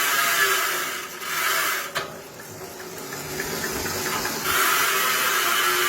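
Bicycle rear wheel coasting with zip ties tied on and flicking against the spokes, making a rapid buzzing rattle meant to imitate a loud freehub. The buzz fades about two seconds in and comes back strongly near the end.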